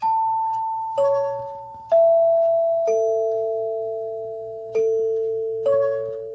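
NuTone Symphonic door chime, its hand-tuned brass tone bars struck one at a time to play the eight-note front-door tune. Six notes fall here, about a second apart, at several pitches, each ringing on and overlapping the next, with a longer gap before the fifth.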